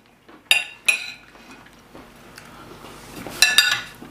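Metal cutlery clinking on plates: two clinks within the first second, then a quick run of clinks near the end.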